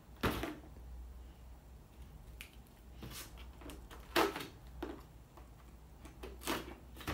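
Scissors cutting the tape on a small cardboard box, with the cardboard scraping and rustling as it is handled: a handful of short, separate clicks and scrapes, the loudest about four seconds in.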